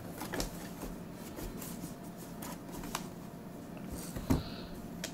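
Hands handling an empty cardboard box, with faint scrapes and light taps of the cardboard and a soft thump about four seconds in.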